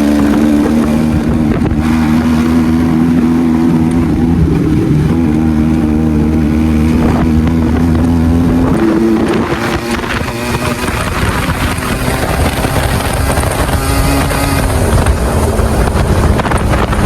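Benelli motorcycle engine on its stock exhaust running at steady cruising revs, with wind buffeting the microphone. About nine seconds in, the engine note rises briefly and then drops back under the wind noise, with a falling engine note near the end.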